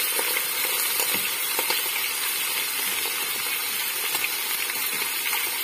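Pieces of chicken frying in hot oil under a glass lid: a steady sizzle with scattered faint pops. The chicken went into the oil wet from washing, which makes it spit.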